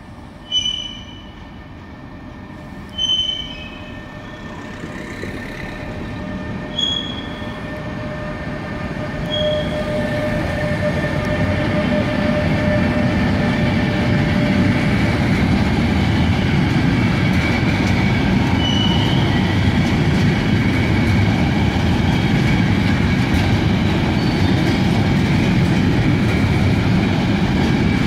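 A freight train with an electric locomotive at its head approaches and passes close by, hauling container wagons. Its rumble grows steadily louder over the first dozen seconds and then holds as the wagons roll past. A few short, high squeaks sound in the first ten seconds or so.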